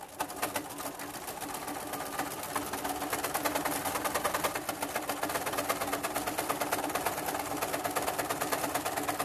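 Sewing machine stitching a topstitch through three layers of fabric along a zipper: a steady motor hum under a rapid, even clatter of the needle, building up over the first few seconds and then holding steady.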